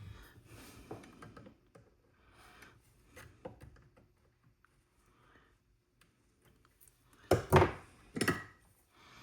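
Hand work on wiring: light clicks and rustles of wire and tools being handled, then two louder rustling or scraping noises a second apart near the end.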